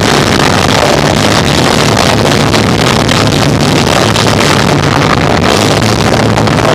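A rock band with guitar, bass and drums playing live, recorded through an overloaded microphone: a dense, steady, distorted wall of sound with low bass notes droning underneath, the music barely distinguishable.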